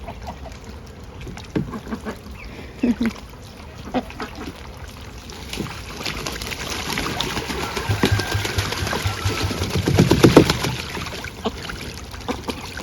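Silver Appleyard ducks splashing and dabbling in a water pool, with some duck calls. The activity builds to its loudest about ten seconds in.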